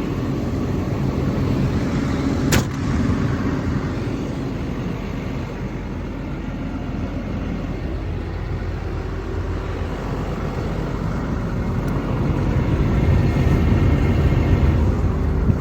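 XCMG XE210CU excavator's Cummins diesel engine idling steadily, with one sharp click about two and a half seconds in. It grows somewhat louder near the end.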